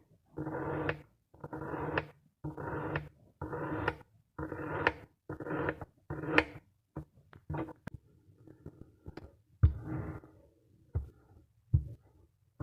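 Kinetic sand being sliced over and over, about one stroke every 0.7 s: each a short crunch ending in a sharp click. After about eight seconds the strokes stop, leaving softer crumbling and two dull thuds.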